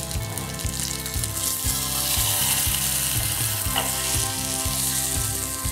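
Masala-coated pearl spot fish frying in coconut oil in a non-stick pan: a steady sizzle that swells louder about a second and a half in, as the fish is turned over so its uncooked side meets the hot oil.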